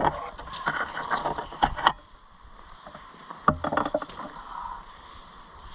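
Irregular sharp clicks and knocks in two clusters, one over the first two seconds and one about three and a half seconds in, over a faint steady hiss.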